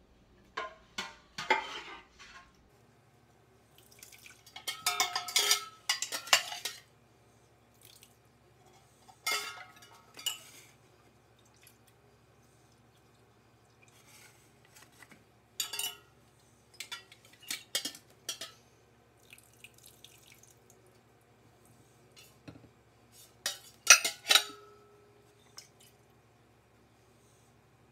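Stainless steel pots knocking and clanking as they are handled, in scattered bursts, with some liquid dripping. The loudest knock comes near the end and leaves a short metallic ring.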